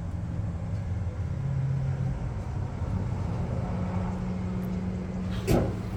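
A motor vehicle engine running at a steady low hum whose pitch shifts a little, with one sharp knock about five and a half seconds in.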